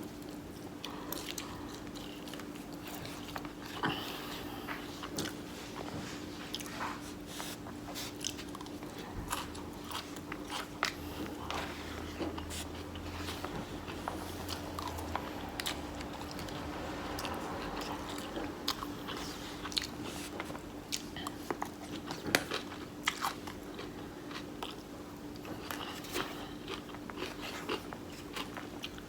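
A person eating close to the microphone: chewing and biting with many irregular sharp mouth clicks, over a steady low hum.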